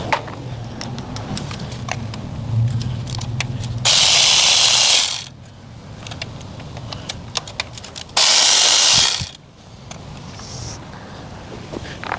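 A power tool fitted with a 12 mm socket runs twice, about a second each time and four seconds apart, backing out the valve cover bolts. Small clicks of tool and bolt handling fall in between.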